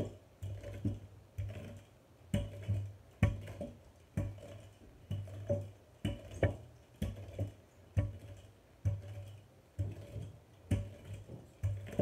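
Wooden rolling pin rolling out pie dough on a floured countertop: repeated strokes about one a second, each a short low rumble with sharp clicks.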